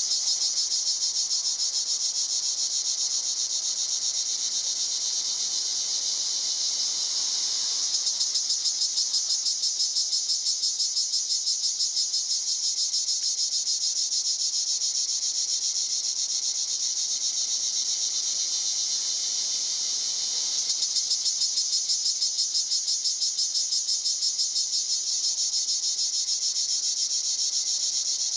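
Cicada singing: a continuous, high-pitched buzzing whine with a fast, even pulse running through it.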